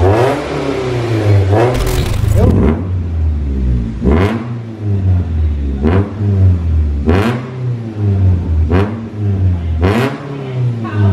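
Mitsubishi Xpander's four-cylinder engine idling through a freshly fitted aftermarket exhaust (custom 4-2-1 header, Hold resonator, NDK DK-03v4 muffler). It is blipped about seven times in quick succession, each rev rising and falling back to idle. The note is bass-heavy, with none of the whirring 'ngir' that the old resonator's broken internals used to make.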